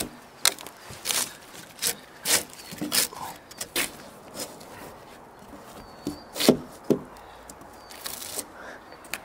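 Drawknife scraping bark off a log in short strokes, a dozen or so, each one sharp and brief, with a pause of a second or more near the middle.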